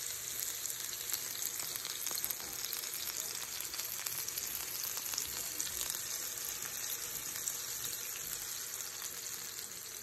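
Raw ground-beef burger patties sizzling on a hot electric contact grill: a steady frying hiss with fine crackles.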